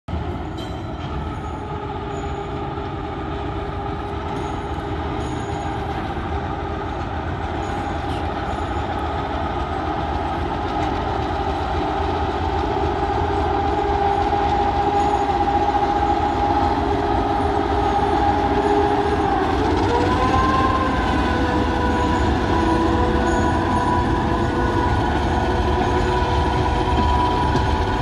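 TGM6A diesel-hydraulic shunting locomotive working as it hauls loaded freight wagons, its engine whine over the low rumble of wheels on rail, growing louder as it approaches. About twenty seconds in the whine rises in pitch and holds at the higher note.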